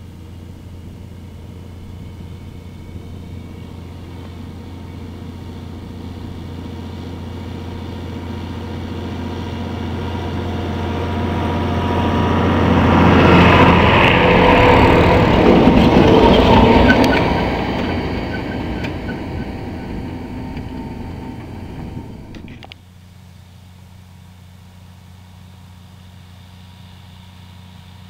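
John Deere 6900 tractor's six-cylinder diesel engine running steadily under load as the tractor and its planter approach and pass right overhead. The engine grows loud at the pass, mixed with noise from the planter's row units, then fades. About two-thirds of the way through, the sound cuts suddenly to the same tractor working farther off, quieter and steady.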